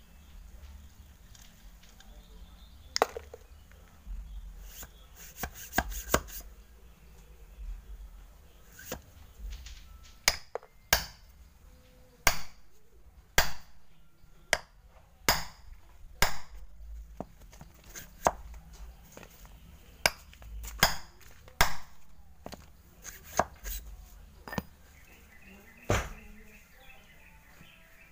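A metal rammer is pounded down into a cardboard firework tube to pack a clay plug tight, giving about twenty sharp knocks at an uneven pace.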